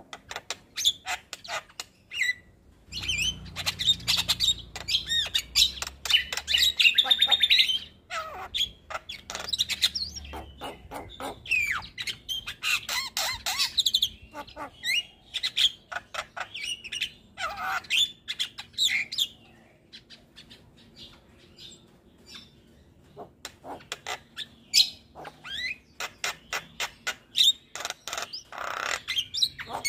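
Javan myna singing a long, varied song of rapid clicking chatter, harsh squawks and whistled notes. It is densest and loudest in the first several seconds, eases into a quieter lull about two-thirds through, then picks up again.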